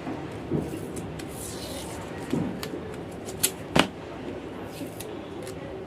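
Small handling clicks and knocks from hand work on a camping lantern's battery and wiring, with a brief scraping hiss about a second and a half in, like insulating tape being pulled. The two sharpest clicks come near the end.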